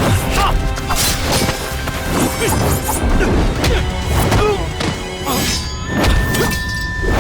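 Soundtrack of an animated action scene: repeated hits and crashes, roughly every half second, over background music.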